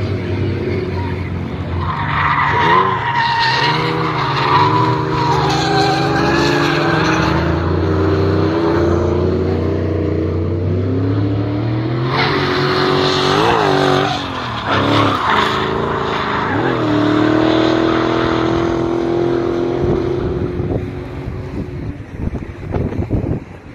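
Drift cars sliding through a corner, engines revving up and down against the rev limit while the rear tyres screech. The tyre squeal is strongest about two to seven seconds in and again around twelve to sixteen seconds. The noise fades off near the end.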